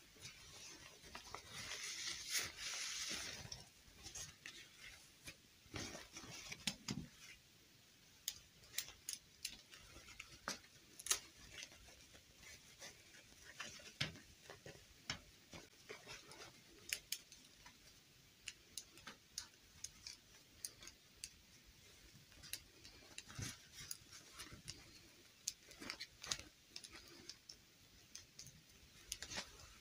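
Handling sounds of a plastic fashion doll being dressed: a soft rustle of cloth about two seconds in, then scattered light clicks and taps of plastic doll limbs and fingers against the doll.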